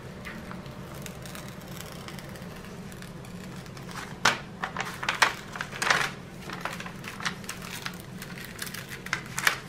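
The glossy protective cover sheet of a diamond painting canvas rustling and crinkling as it is peeled back and smoothed down by hand, in a string of short crackles from about four seconds in, over a faint steady low hum.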